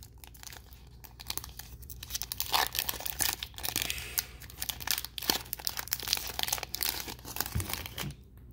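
A foil Digimon Card Game booster pack torn open by hand, the wrapper crinkling and tearing in a long run of crackles.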